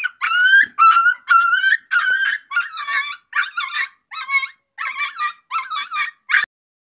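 A dog giving a quick run of about a dozen short, high-pitched whining yips, roughly two a second, each bending in pitch.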